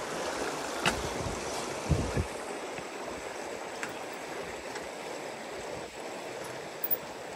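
River water rushing steadily beneath a footbridge, with a few light knocks from footsteps on the metal bridge in the first couple of seconds.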